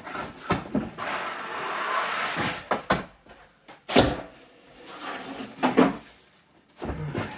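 Packaging rustling for about two seconds, then a sharp knock and a few more clatters of hard plastic vacuum parts being handled and set down.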